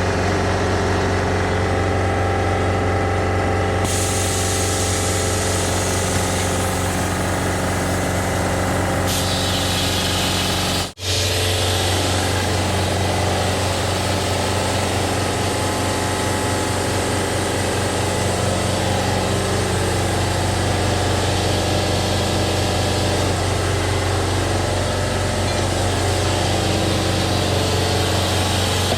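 Air compressor running steadily with a low hum, filling the air tank for a tire bead blaster. A high air hiss joins in about four seconds in.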